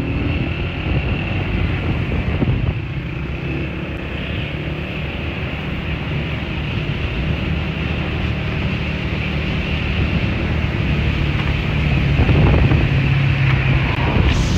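A vehicle's engine running steadily, with wind buffeting the microphone. It gets louder from about twelve seconds in.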